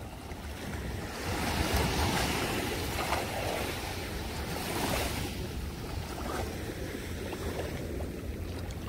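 Sea surf washing in over the shallows, with wind buffeting the microphone; the wash swells about a second in and surges again around five seconds.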